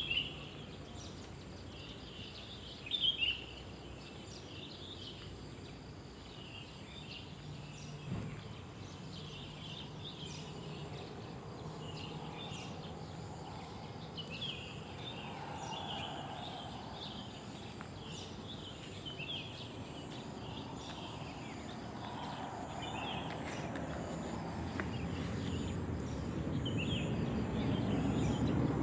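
Morning outdoor chorus: birds chirping in short, repeated calls while a cricket keeps up a steady high-pitched trill. A low rumble slowly builds toward the end.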